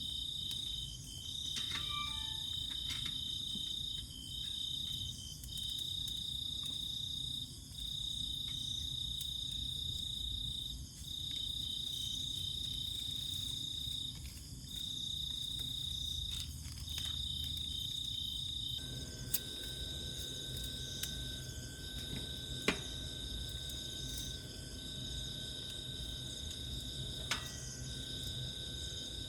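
Insects trilling in a high, steady chorus, in long stretches broken by brief gaps. About two-thirds of the way through a fainter steady tone joins in, and a few sharp clicks sound near the end.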